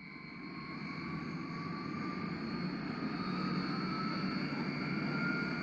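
An engine fading in and growing steadily louder, with two high steady whines over its low running and a third whine slowly rising in pitch.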